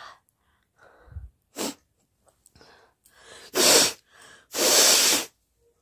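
A woman sneezing repeatedly: a short snort and quick breaths, then two loud sneezes about three and a half and four and a half seconds in, the second lasting nearly a second.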